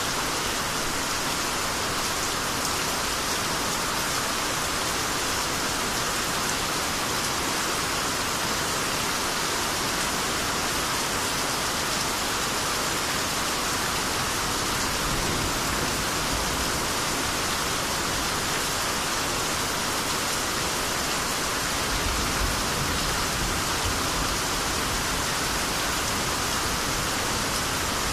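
Steady rainy-season rain falling in a dense, even hiss of drops on surfaces. A brief low rumble swells up about two-thirds of the way through.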